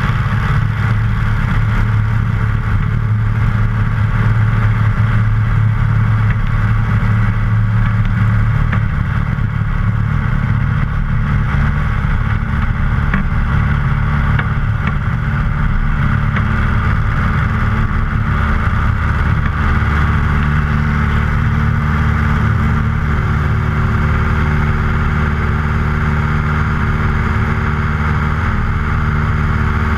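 Luscombe light aircraft's piston engine and propeller at full takeoff power, a loud steady drone through the takeoff roll and lift-off, the engine note shifting slightly partway through.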